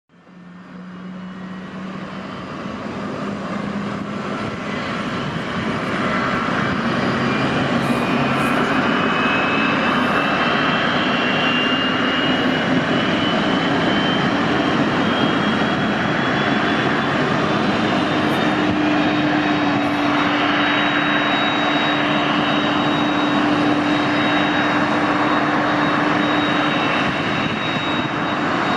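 Airbus A321-200 jet engines whining and running steadily, fading in over the first few seconds. A high whine climbs slowly in pitch over about ten seconds as the engines spool up during pushback, and a steady lower hum joins it about two-thirds of the way through.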